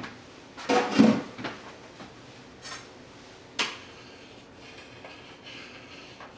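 Kitchenware clattering at the stove: a bowl and spoon knocking against a saucepan as cornstarch slurry goes into the lemon sauce. A few clattering knocks come about a second in and a sharper single knock comes midway.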